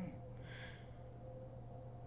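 A sleeping woman's snore tails off right at the start, followed about half a second in by a short breathy exhale. After that only a steady low hum remains, between snores.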